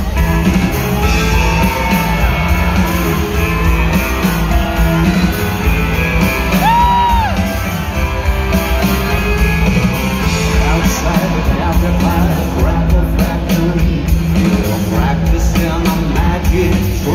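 Live rock band playing loudly in an arena, recorded from the crowd: electric guitar, bass and drums with singing, the sound filling a large hall.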